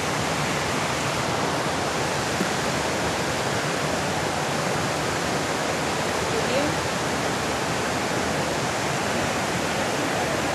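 Steady rushing roar of a large indoor waterfall, the Rain Vortex pouring down through the glass dome, heard as a constant even wash of falling water.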